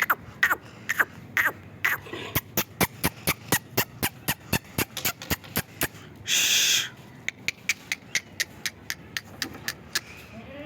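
A rapid series of sharp clicks, about four a second, with a short hiss a little past the middle.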